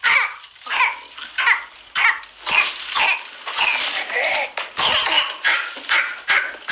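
A child coughing in a paroxysm of whooping cough (pertussis): a rapid, uncontrolled run of coughs, about two a second, with little chance to draw breath between them.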